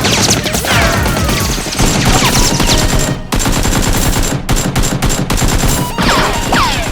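Rapid gunfire sound effects in a continuous fusillade, with a short break about three seconds in.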